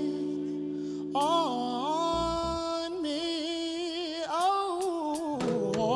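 Soulful R&B singing: a held, bending vocal line with runs and no clear words, over sustained accompaniment chords.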